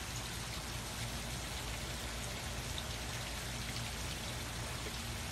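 Steady splashing patter of a pool fountain's arcing water jet falling onto the pool's surface, with a low steady hum underneath.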